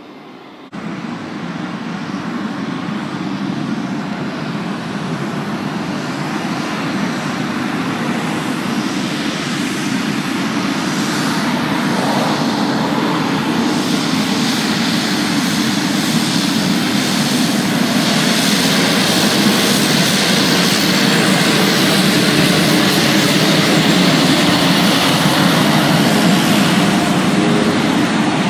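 Pilatus PC-21's turboprop engine running as the trainer sits on the runway. After a quieter first second the noise jumps up, then grows steadily louder, with a rising high-pitched hiss over a deep drone in the second half as power builds.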